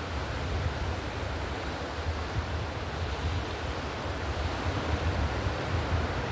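Ocean-surf white noise for sleep: a steady rushing sound with a strong low rumble, even in level, without distinct swells of breaking waves.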